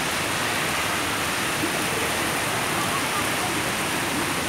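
Heavy rain pouring steadily onto a paved street and road, a dense, even hiss.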